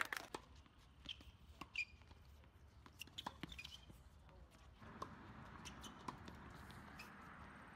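Faint, scattered pops of tennis balls struck by rackets and bouncing on a hard court during a doubles rally, at uneven intervals, with an occasional short high squeak. A steady background hiss comes up about five seconds in.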